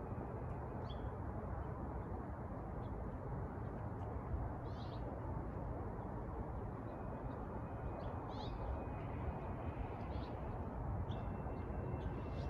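Steady low background rumble with a handful of short, high bird chirps scattered through it.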